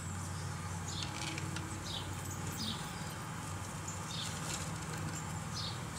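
Short, high chirps, as of small birds, scattered irregularly every second or so over a steady low hum.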